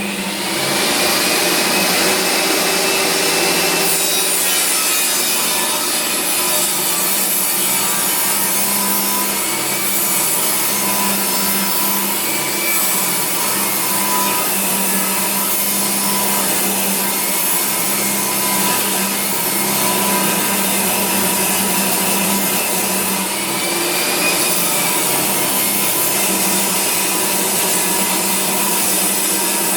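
Makita 2704N 10-inch table saw running and ripping a recycled Australian ash board: a steady, loud motor-and-blade noise, the pitch sagging briefly a few times as the blade takes load.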